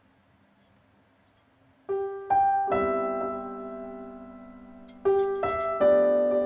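Near silence, then background piano music starting about two seconds in: groups of struck notes that ring and fade, with a second group about five seconds in.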